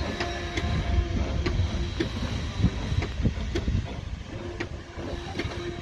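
Steam-hauled goods train running away at low speed: a low rumble with irregular clicks and knocks from the wagons' wheels over the rail joints, and a steady tone that comes and goes.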